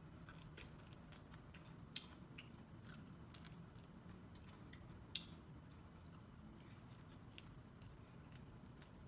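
Biting and chewing kernels off a cooked corn cob: faint, irregular crisp clicks, two louder snaps about two seconds in and again about five seconds in.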